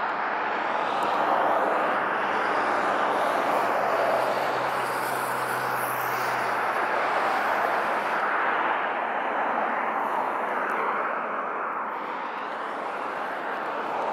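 Road traffic passing on the highway: steady tyre and engine noise that swells and eases as vehicles go by, fading somewhat near the end.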